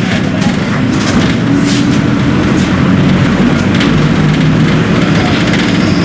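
Engine of a Volkswagen 17.230 OD Euro V bus chassis running while the bus is driven: a steady low drone with tones that shift in pitch a few times.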